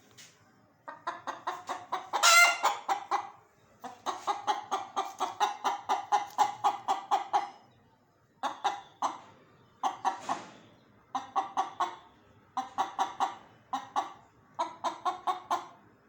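Chickens clucking in quick runs of short pitched notes, about four or five a second, broken by brief pauses, with one louder squawk about two seconds in.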